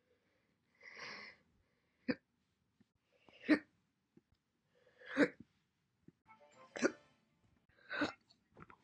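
A woman hiccuping repeatedly: short, sharp voiced 'hic' sounds, roughly one every second and a half.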